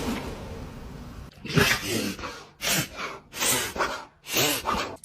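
A dog sneezing repeatedly: a quick series of about six short, sharp nasal bursts, starting a little over a second in.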